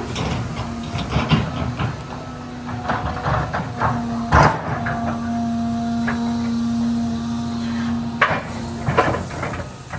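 John Deere excavator's diesel engine running with a steady hum, under repeated sharp cracks and knocks as the machine breaks into a tree's limbs. The loudest crack comes a little over four seconds in, with more near eight and nine seconds.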